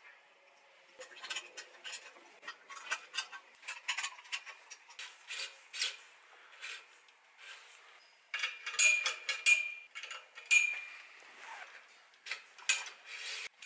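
Steel support cables and their small end hardware clinking and rattling as they are handled and hooked onto a steel clamp ring and the legs of a metal base: a run of light metallic clicks. Sharper ringing clinks come around two-thirds of the way through.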